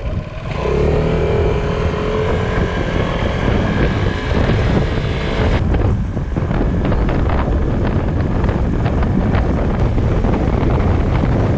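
Motor scooter engine running as the scooter rides along the road, its whine clear for the first five seconds or so, then mostly covered by wind rumbling and buffeting on the microphone.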